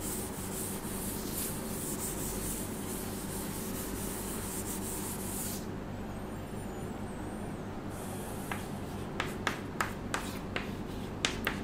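Duster rubbing chalk off a chalkboard for about five seconds, then short chalk strokes and taps as writing begins on the board over the last few seconds.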